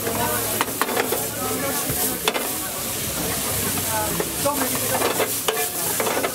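Chicken and mixed vegetables sizzling in a nonstick frying pan over a gas burner while being stir-fried, with a slotted spatula scraping and clacking against the pan now and then.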